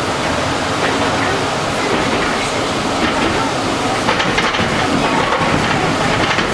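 Steady, loud rumble and rush of a 2006 CSR Qingdao Sifang SFM04 subway train running through a tunnel, heard from inside the carriage, with a few faint clicks about four seconds in.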